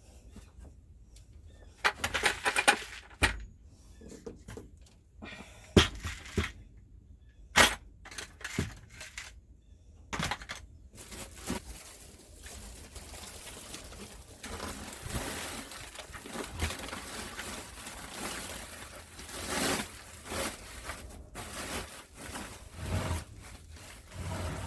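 Buckets being handled and filled: a run of sharp knocks and clatter, then a steady rushing pour for the second half.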